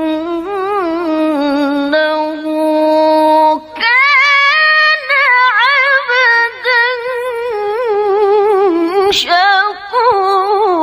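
A woman's voice in melodic Quran recitation (tilawah), drawing out long, ornamented held notes that waver up and down in pitch. She breaks off briefly a little under 4 seconds in, then takes up a new phrase at a higher pitch.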